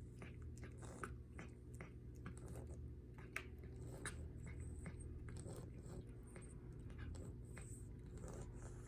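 A cat chewing and eating food, with irregular small clicks and crunches over a steady low hum.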